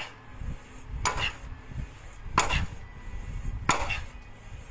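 Sledgehammer blows on a boulder: three sharp, clanking strikes about a second and a quarter apart.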